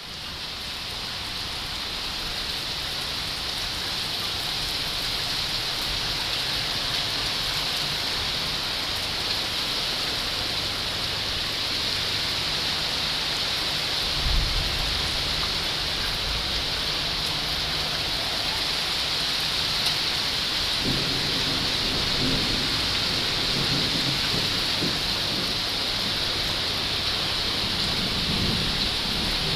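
Heavy rain pouring down in a steady hiss, with low rumbles of thunder from about halfway through.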